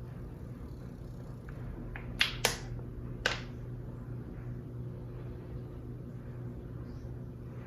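Three short, sharp clicks a little over two seconds in and again near the middle, over a steady low hum.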